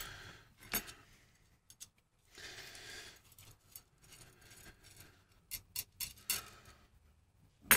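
Light metallic clicks of steel nuts and washers being handled and threaded onto M8 threaded rods, a few scattered, then a quick cluster about five and a half seconds in, with a brief soft scraping about two and a half seconds in.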